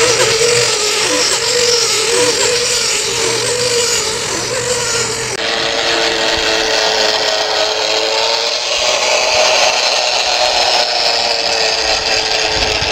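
Small motors and gearing of model trams on a garden railway, running along the track with a steady whine over wheel-on-rail noise. The whine wavers at first and changes abruptly about five seconds in, when a second tram is heard.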